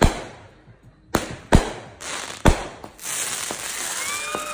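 Consumer fireworks going off. There are four sharp bangs of aerial shell bursts in the first two and a half seconds. From about three seconds in comes the steady loud hiss of a sparking fountain, and a whistling tone joins near the end.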